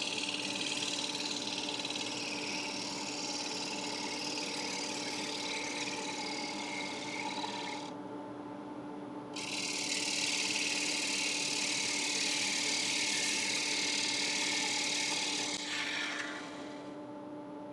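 A 3/8-inch bowl gouge cutting the inside of a walnut bowl on a running wood lathe: a steady hiss of the cut over the lathe's motor hum. The cut breaks off briefly about eight seconds in, resumes, and stops around sixteen seconds in, leaving only the lathe running.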